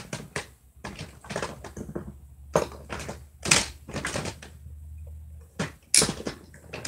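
Hands rummaging through a container of small plastic toy pony figures: irregular clacks, knocks and rustles as the figures knock together, with a few louder knocks.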